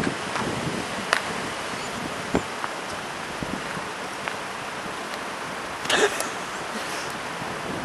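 Steady outdoor street background noise, a hiss-like haze, with a few faint clicks and a short louder rustle about six seconds in.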